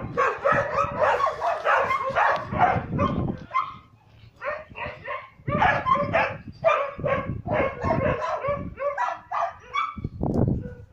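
A dog barking and yipping in rapid, excited runs, with a short lull about four to five seconds in.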